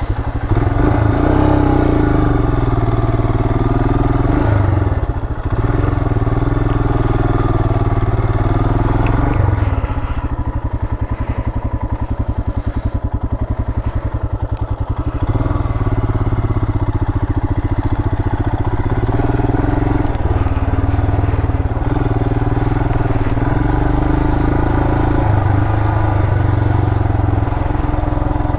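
2020 Royal Enfield Himalayan's 411 cc single-cylinder engine running steadily under load as the motorcycle climbs a steep dirt trail section. About ten seconds in it drops to a slower, more distinct firing beat for a few seconds, then picks up again.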